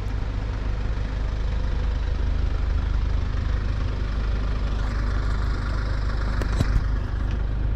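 A motor vehicle's engine running with a steady low rumble and road noise, with a few short clicks near the end.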